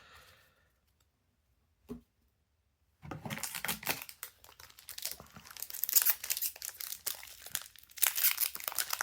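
Near silence with one short click about two seconds in, then from about three seconds on the crinkling and tearing of a foil trading-card booster pack wrapper being ripped open.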